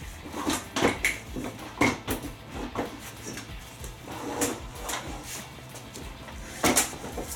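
A washing machine's cabinet being handled and shifted by hand, giving about six irregular knocks and clunks, the loudest near the end.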